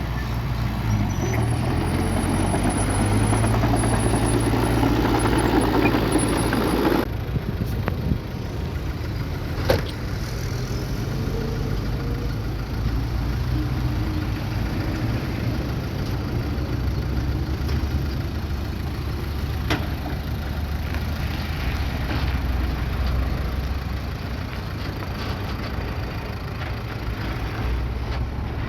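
Bulldozer's diesel engine running steadily, with its sound changing abruptly about seven seconds in. Two sharp knocks stand out, one about ten seconds in and one about twenty seconds in.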